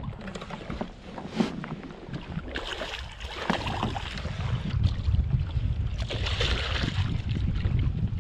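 Wind rumbling on the microphone, with water noise around a small fishing kayak and a few short knocks.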